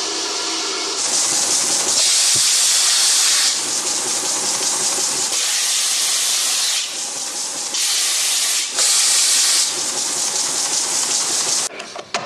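Belt sander running, first on its own with a steady hum, then with a wooden accordion reed block (soniera) pressed onto the belt, giving a loud sanding hiss that swells and eases over several passes. The sanding stops suddenly near the end.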